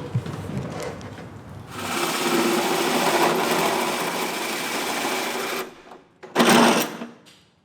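Electric power drill cutting steadily through the car's steel firewall for about four seconds, then a short second burst near the end.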